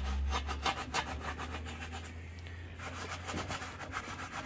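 Steel wool scrubbing the inside of a steel smoker firebox through soapy water in quick back-and-forth strokes, with a short pause about two seconds in. The scrubbing strips the factory grease down to bare metal before seasoning.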